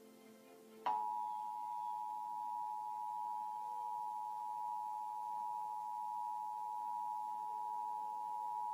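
Emergency Alert System attention signal: two steady tones sounding together for about eight seconds, starting about a second in and cutting off abruptly.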